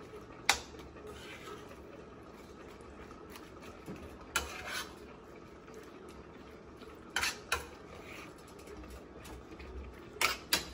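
Metal tongs clinking and scraping against a stainless steel skillet as chicken and spinach are tossed. A few sharp clinks come singly or in pairs: one about half a second in, two near the middle, two more a little later and two near the end.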